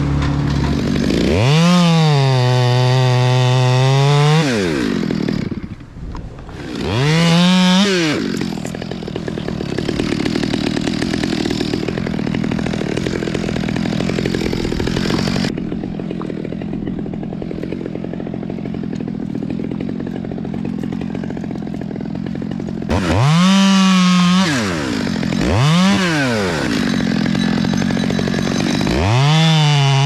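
Gas chainsaw cutting limbs from a fir tree, rising sharply to full throttle about five times and dropping back, each burst lasting one to three seconds. In the middle stretch it runs lower and rougher.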